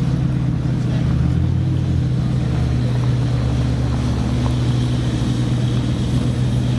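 Supercar engine running at low revs: a steady, deep drone that holds level throughout.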